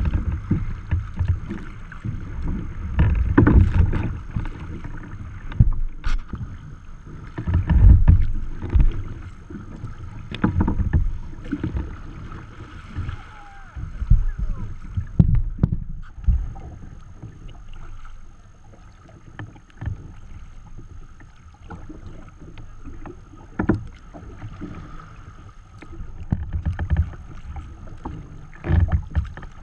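Choppy water splashing and slapping against a sea kayak's hull as it is paddled, with uneven low gusts of wind buffeting the microphone.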